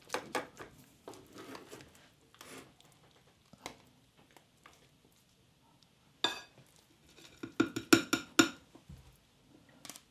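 Metal serving spoon and spatula scraping and knocking against a glass baking dish as a portion of cottage pie is cut and lifted out. There are scattered clinks and a scrape early on, and a quick run of sharper clinks about three quarters of the way through.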